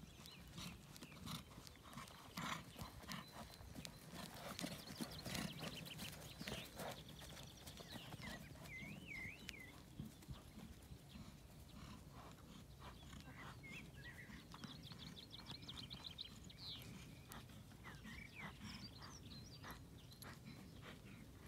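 Faint hoofbeats of a horse moving over grass, as a run of soft, uneven knocks.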